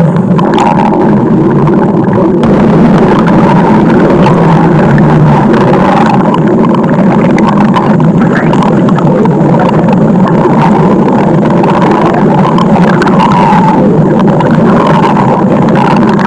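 Stomach growling: a loud, continuous rumble that goes on without a break.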